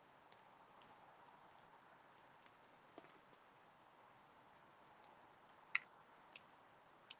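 Near silence: faint steady hiss with a few scattered sharp clicks, the loudest about three-quarters of the way through.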